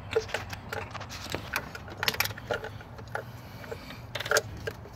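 Irregular clicks and light rattles of hands working plastic electrical connectors and parts among the ignition coils, as the coil-on-plug connectors are unplugged. A louder cluster of clicks comes about four seconds in.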